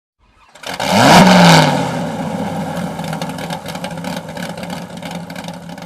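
A vehicle engine starts and revs up briefly, then settles to a steady idle.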